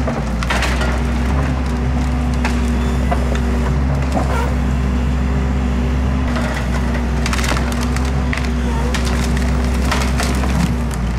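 NOE 170-6R forestry machine's six-cylinder 6.7-litre diesel running steadily while its crane grapple works a pile of hardwood, with branches and logs cracking and splintering several times.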